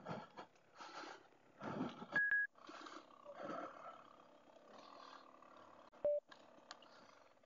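Muffled dirt-bike engine and wind noise picked up through a helmet intercom microphone, cutting in and out. Two short electronic beeps stand out, a high one about two seconds in and a lower one near six seconds.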